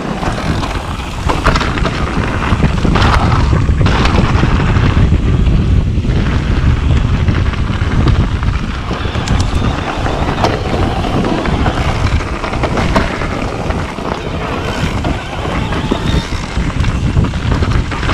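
Mountain bike riding a dirt trail, tyres rolling with scattered sharp knocks and rattles over bumps, under steady wind buffeting the microphone.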